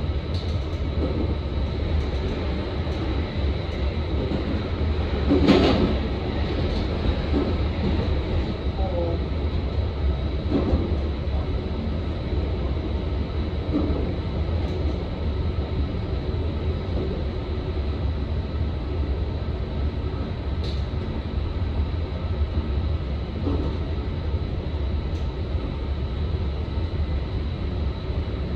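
Electric commuter train running along the line, heard from inside the front car: a steady rumble of wheels on rail with a thin steady high whine, and a louder clatter about five and a half seconds in.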